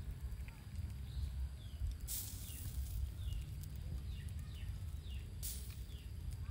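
Small birds chirping, a string of short falling notes, over a steady low rumble. Twice a brief hiss rises up, about two seconds in and again near the end.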